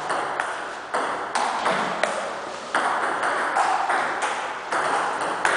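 Table tennis rally: the ball clicking off the bats and the table, about two to three hits a second, each hit ringing briefly in a large hard-walled hall.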